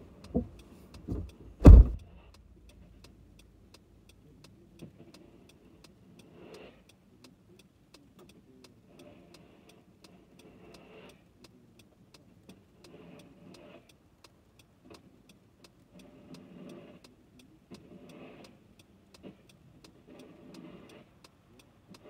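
Inside a car: a few knocks in the first two seconds, the last a heavy thump of a car door shutting. Then a faint, even ticking, about three a second, with soft muffled swells of noise every couple of seconds.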